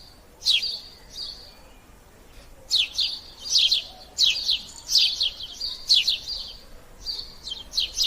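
Sparrow chirping: short, sharp, downward-sweeping chirps in quick clusters. A brief pause comes about two seconds in, then the chirps run on almost without a break.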